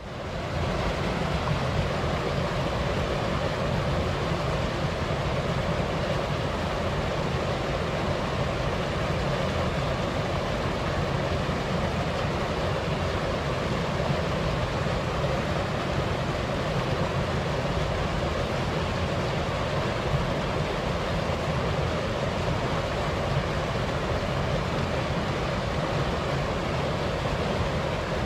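Steady rushing of a waterfall mixed with a light wind, an even unbroken noise that fades in at the very start and then holds level.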